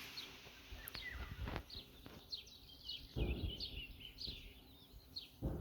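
Small birds chirping over and over in short, quick falling notes. Low gusts of wind buffet the microphone about three seconds in and again near the end.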